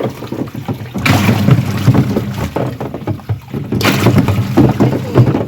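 Water sloshing and splashing around a smartphone being moved about in it, in irregular loud surges, strongest about a second in and again near four seconds.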